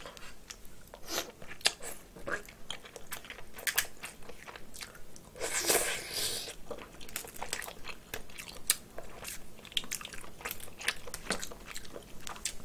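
Close-miked snow crab legs being snapped and pulled apart by hand, with many small clicks and cracks of shell. About halfway through there is a denser stretch of mouth noise as the leg meat is bitten and chewed.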